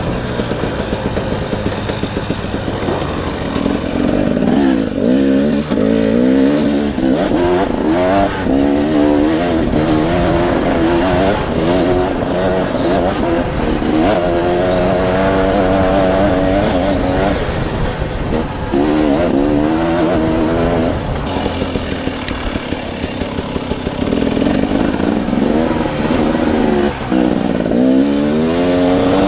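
Dirt bike engine revving up and dropping back over and over as the rider rides the trail and works through the gears, over a steady rush of wind noise.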